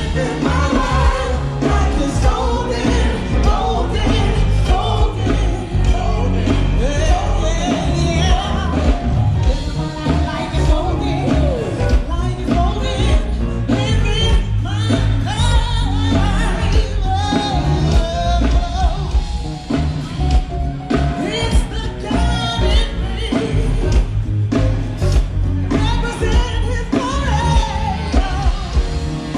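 A band playing a rock-and-roll song with a singer, with a heavy bass and steady beat under the voice.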